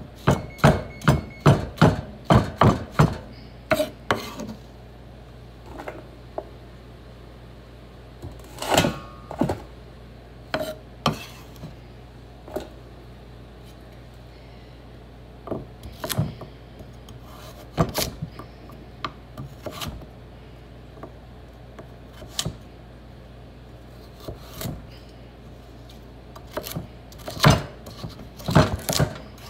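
Kitchen knife chopping vegetables on a wooden cutting board: a quick run of knocks, about three a second, for the first few seconds, then scattered single knocks, and another quick run near the end.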